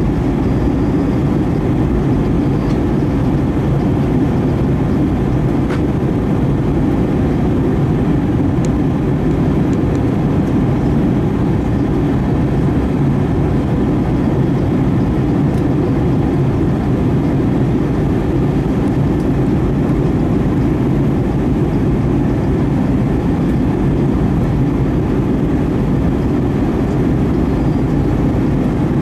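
Steady low drone of an Airbus A320-232's IAE V2500 turbofan engines and the airflow, heard inside the cabin from a window seat beside the engine as the jet descends. It is even and unbroken, with most of its weight low down.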